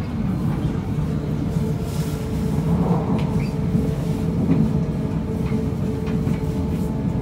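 Interior running sound of a JR East E3 series 1000 Shinkansen train, which has Hitachi IGBT VVVF traction inverters: a steady low rumble of wheels and running gear, with a faint steady tone above it.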